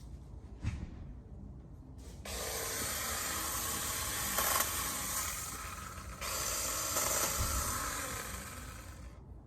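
Battery-powered BeiHong 6-inch mini chainsaw cutting through a maple branch, a rasping hiss in two stretches: about four seconds starting two seconds in, then about three more seconds after a brief dip.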